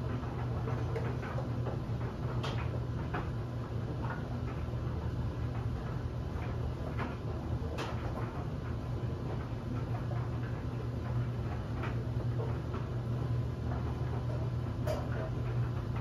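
LG DLE7300WE electric clothes dryer tumbling a load of bed linens: a steady low motor-and-drum hum with scattered, irregular light clicks and taps as the load turns over in the drum.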